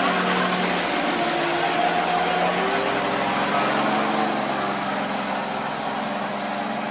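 Old diesel cargo truck's engine running under load as it drives past, gradually fading as it pulls away.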